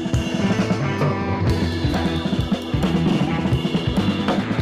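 Background rock music with drums and guitar and a steady beat.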